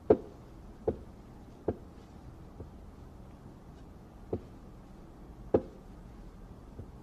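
A series of sharp, short knocks, seven in all at uneven spacing, the first and a later one the loudest.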